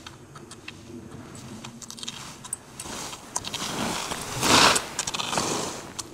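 Skis carving over snow: a hissing scrape that builds about halfway through and is loudest about three-quarters of the way in, with scattered clicks.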